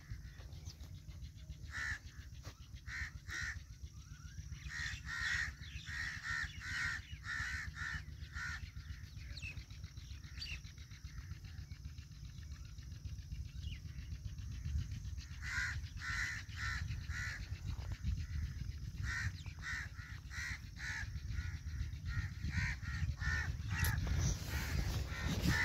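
Crows cawing in runs of short, quickly repeated calls, with pauses between the runs, over a steady low rumble.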